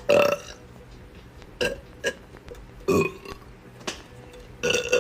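A person burping several times: short separate burps with quiet gaps between, the longest about three seconds in.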